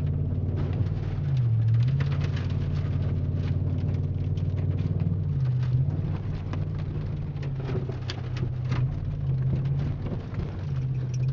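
Chevy Silverado pickup's engine and exhaust droning, heard from inside the cab, with the pitch dipping briefly and coming back up several times as the throttle changes. Scattered ticks and patter run over the drone throughout.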